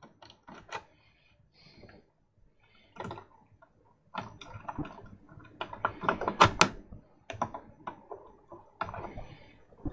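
Needle-nose pliers clicking and scraping against a wire terminal post inside a CD player while stranded wire is wrapped tight around it. There are a few scattered clicks at first, then a busy run of clicks in the middle, loudest near the end of that run.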